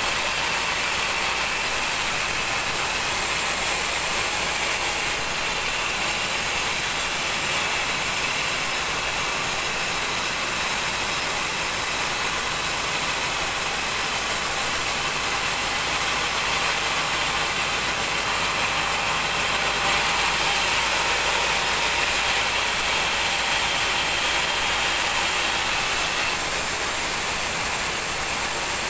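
Large band sawmill running and cutting through a big mahogany log: a steady, loud, noisy whine of the blade in the wood, with a slight change in tone near the end.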